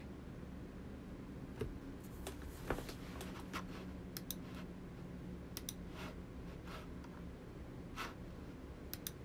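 Faint, irregular light clicks and taps, about a dozen, starting a second or two in, over a low steady room hum.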